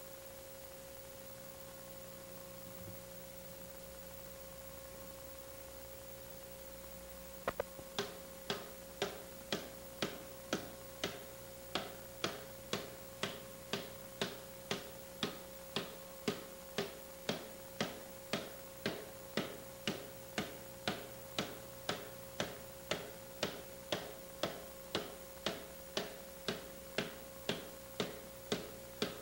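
Steady faint hum; about seven seconds in, a regular ticking starts, about two sharp ticks a second, and carries on evenly.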